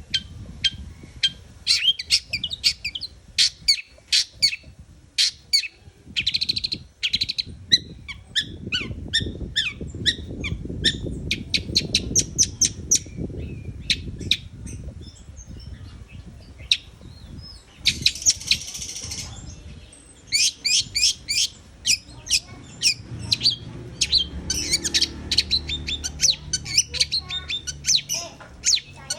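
Long-tailed shrike (cendet) singing: rapid runs of short, sharp, high chirps, with a harsh rasping burst a little past the middle, over a low background rumble.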